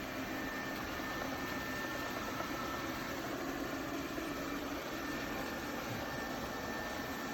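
Lefant M210 Pro robot vacuum running: a steady whir of its suction fan and brushes, with a faint constant high tone over the noise.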